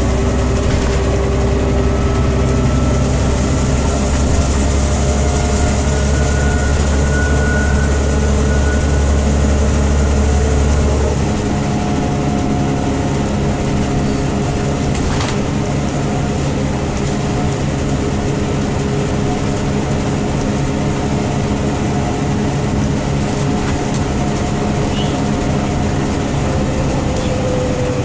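A Scania OmniCity city bus heard from inside while driving: its Scania DC9 five-cylinder diesel and ZF 4HP 502 automatic gearbox running under way over a steady rush of road noise. The deep engine drone drops away suddenly about eleven seconds in.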